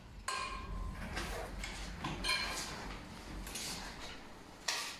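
Metal clicks and clunks of an Action 2 manual wheelchair's parts being fitted and handled, as an armrest is seated and a footrest picked up: five or so separate sharp knocks about a second apart, some with a brief metallic ring, the loudest near the end.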